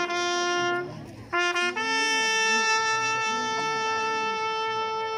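Solo trumpet playing slow, long-held notes: a lower note, a short repeat of it, then a higher note held for several seconds. It is a call played for a minute of silence in memory of the dead.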